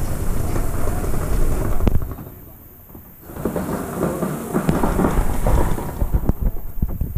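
Rumbling, rustling handling noise right on a camera's microphone: fabric brushing against it and a hand gripping and covering the camera, with a few sharp clicks. The noise drops away briefly about two seconds in, then returns.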